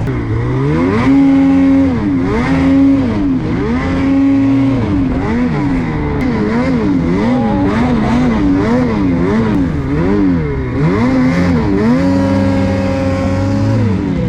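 A vehicle engine revving up and down over and over. The pitch is held steady for a second or two at times, swings quickly back and forth through the middle, then holds a longer steady run near the end before dropping back.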